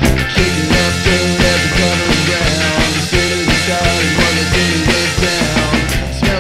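Rock band of electric guitar, bass guitar and drums playing an instrumental passage with no vocals. A guitar melody with bending notes rides over the drums. The deep bass drops out just after the start and comes back in about five seconds later.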